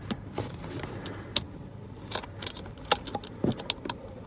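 Handling of a leather ring-bound agenda: a scatter of small, sharp clicks and rustles from its pages and metal binder rings as it is pressed and shut, over the low steady hum of a car cabin.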